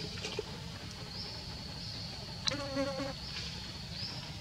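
Insects droning steadily at a high pitch, the drone swelling every couple of seconds. A brief pitched call with a sharp click sounds about halfway through.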